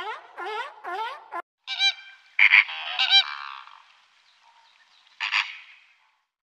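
A seal gives three short calls that rise in pitch, then a flock of flamingos honks, loudest about two and a half seconds in, with a last honk near five seconds.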